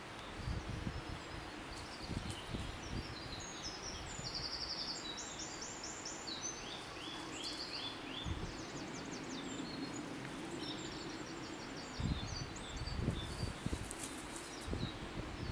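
Several woodland songbirds singing, with short high phrases and quick trills of rapidly repeated notes, over a steady outdoor hiss. Occasional low rumbles come near the start, about halfway through and again near the end, and these are the loudest moments.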